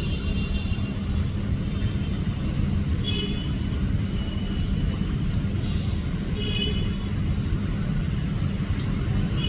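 Steady low rumble with a few brief high chirps, about three and six and a half seconds in.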